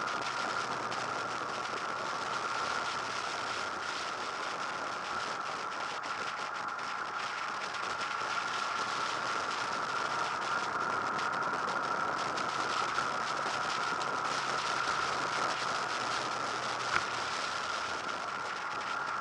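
Steady wind rush on a motorcycle-mounted camera microphone at road speed, with the Honda VFR800 VTEC's V4 engine running faintly underneath. A single short click near the end.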